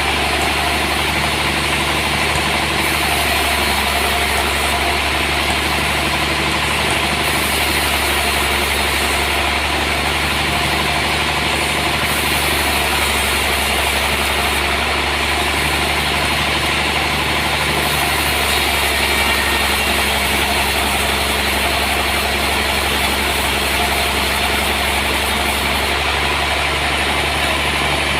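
Sawmill machinery running with a steady, unchanging drone and a low hum, continuous throughout.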